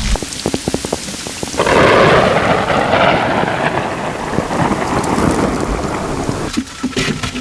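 A thunderclap rolling into a long rumble that swells about one and a half seconds in and slowly fades, over steady rain.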